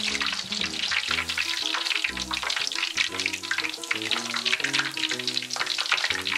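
Skewered pork large intestine deep-frying in a pan of oil: a dense, steady crackling sizzle. Background music plays under it.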